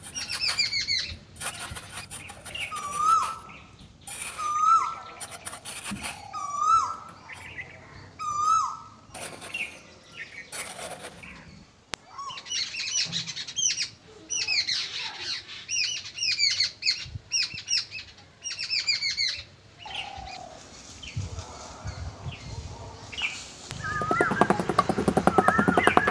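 Several birds chirping and calling, one repeating a short hooked call about every two seconds, with intermittent scrapes of a small trowel in sand. Near the end a quick run of trowel strokes scrapes and pats the sand.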